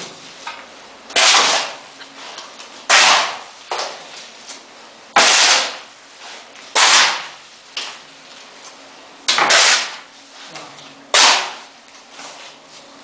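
Steel shovels scooping wet plaster mortar and tipping it into a wall-rendering machine's hopper: six sharp scraping strokes, one about every two seconds, each fading quickly.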